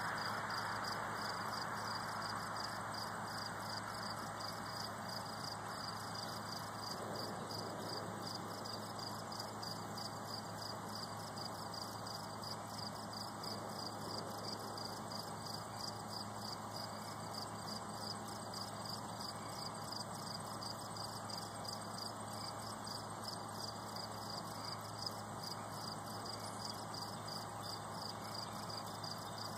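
Insects trilling in the garden: a steady, high, rapidly pulsing chirr, over a soft background hiss that eases off in the first few seconds. One small click late on.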